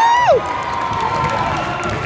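Gym crowd cheering and chattering during a basketball game. In the first half second one loud shout rises in pitch, holds and falls away.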